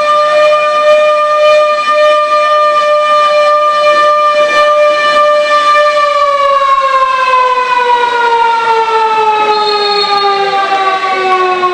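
A siren sounds one long steady wail, then winds down about halfway through, its pitch falling slowly. It is sounded to celebrate a goal just scored.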